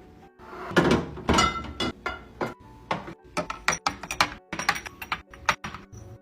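Quick series of knocks, clicks and clatters from containers and packaging being handled and set down while a fridge or pantry is restocked, with a longer noisy burst about a second in.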